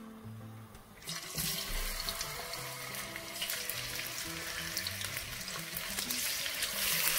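Marinated chicken pieces sizzling in hot oil in a wok. The hiss and crackle start about a second in as the first pieces go in, and grow a little louder as more are added.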